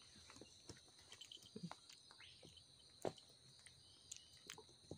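Near silence: a faint steady high drone of insects, with a few soft taps and rustles, the clearest about three seconds in.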